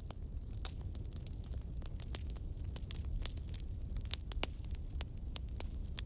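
Wood fire in a fireplace crackling, with frequent irregular sharp pops over a low steady rumble.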